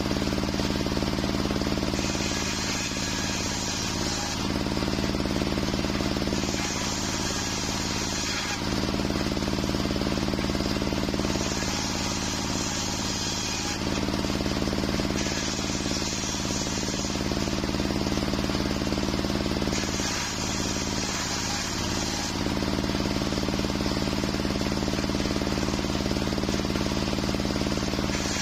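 Homemade table circular saw running steadily while waru wood is ripped into rafter stock. The harsher cutting sound of the blade in the wood comes in again and again, every few seconds, as each board is pushed through over the constant hum of the running saw.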